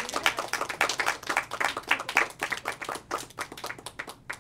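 Audience applauding with dense, irregular clapping that thins out and stops near the end.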